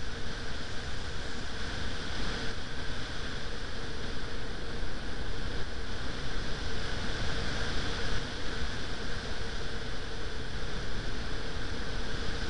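Steady rushing wind noise buffeting the microphone, with a faint steady hum underneath.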